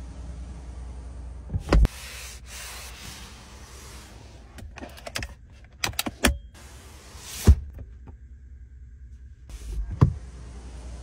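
Clicks and knocks from the interior fittings of a Rolls-Royce Cullinan being worked: the rear door, its door handle and the rear armrest's cupholder cover. About half a dozen sharp knocks are spread over a low steady background, the loudest about two seconds in, a little past the middle, and near the end.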